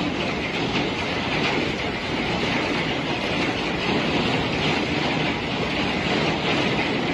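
Violent storm wind and wind-driven rain roaring steadily against large glass windows, heard from inside the room.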